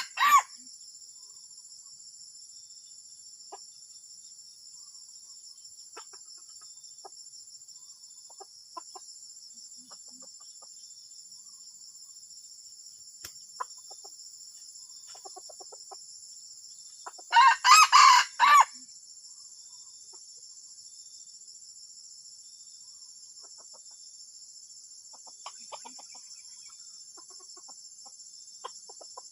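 A junglefowl cock crowing loudly once, about 1.3 s long, a little past the middle, with soft clucks now and then. A steady high-pitched drone runs underneath.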